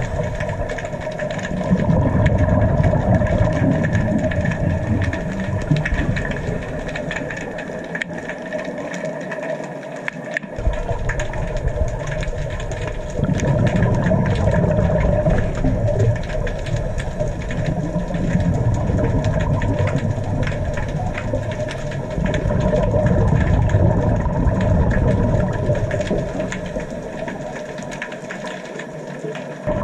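Underwater sound on a scuba dive: a low rumbling of a diver's exhaled regulator bubbles that swells for several seconds and drops away twice, over a steady mechanical hum.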